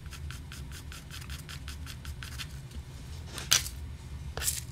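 Pencil scribbling back and forth on a thin sheet of cigarette paper on a wooden bench, in quick even strokes about six a second. The scribbling stops about three seconds in, followed by two sharp taps, the first the loudest sound here.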